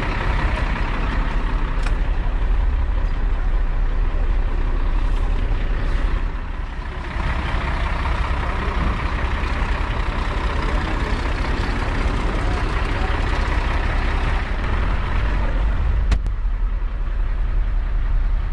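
Heavy diesel truck engine idling steadily, a constant low rumble under a dense hiss, with a brief dip about seven seconds in and a single sharp click near the end.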